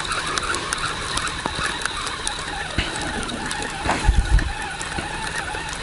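Spinning reel being cranked steadily, a whirring, ticking rattle of its gears as the line is wound in. A couple of low bumps about four seconds in.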